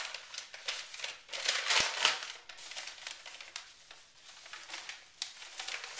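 Brown paper mailing envelope crinkling and rustling in uneven bursts as it is handled and opened by hand, with a louder crackle of paper about two seconds in.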